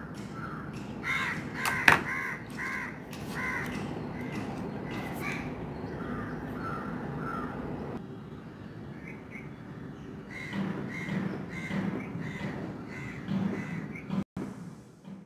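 A bird calling in runs of short repeated cries, several runs in all, with one sharp click about two seconds in that is the loudest sound.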